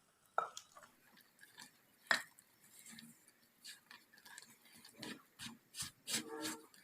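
Kitchen utensils and dishes clinking and knocking lightly: scattered short taps, the sharpest about two seconds in and a quick cluster near the end.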